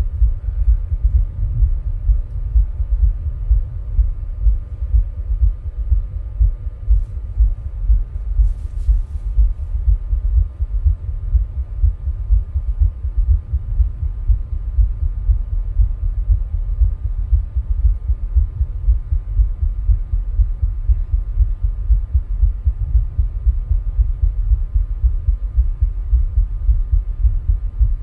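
A person's heartbeat recorded at the chest: a steady, even run of low thumping beats. The heart is working while he rebreathes air from a plastic bag.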